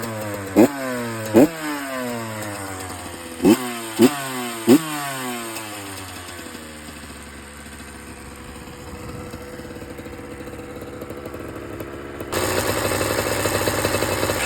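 Honda CR85RB two-stroke dirt bike engine being blipped: five quick revs, two and then three in close succession, each dropping straight back, then settling to a lower steady run. Near the end the sound jumps suddenly louder and stays level. It is being run to check a rattling noise.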